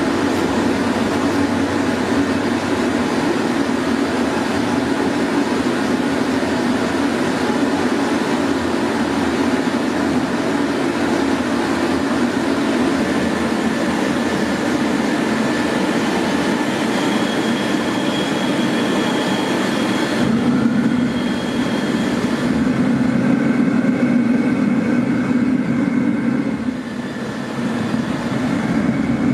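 Steady machine noise with a continuous low hum, and faint steady high tones coming in partway through.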